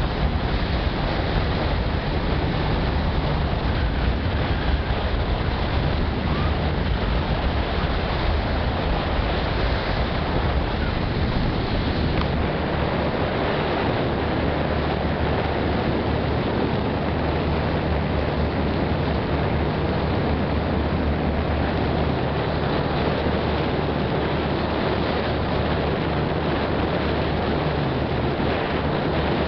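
Passenger ferry underway: a steady low engine drone under the rush of water along the hull, with wind rumbling on the microphone that eases about halfway through.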